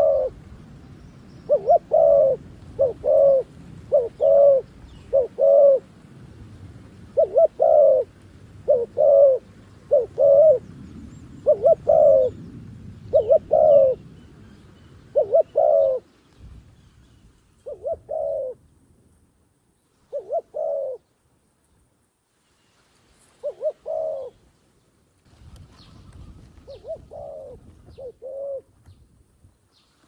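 Dove cooing: a long series of short coos, often in close pairs, coming rapidly at first and more widely spaced in the second half.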